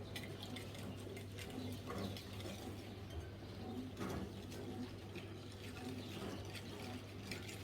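A whisk beating a runny milk-and-mustard sauce in a bowl, its wires ticking lightly and irregularly against the sides.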